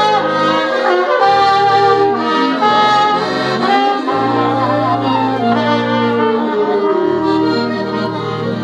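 A small band of accordion, trumpet, alto saxophone, clarinet and bass playing a tune together, the horns carrying the melody over long-held low bass notes.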